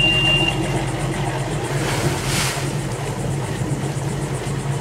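Mercruiser 7.4-litre MPI V8 inboards idling on a cold start, with a short high beep at the very start. About two seconds in a brief hiss comes as the starboard engine joins and its exhaust water churns out at the stern.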